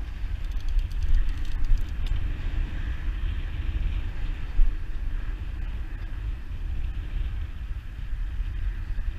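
Unsteady low rumble of wind buffeting the microphone, mixed with road traffic on the highway bridge alongside. A brief run of faint clicks comes in the first two seconds.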